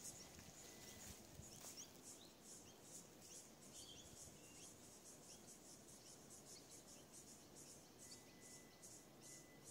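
Faint, high-pitched insect chirping, repeating evenly about three to four times a second.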